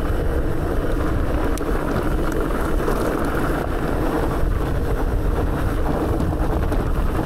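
Steady rush of wind buffeting the microphone while riding a mountain bike, with a low rumble from the ride.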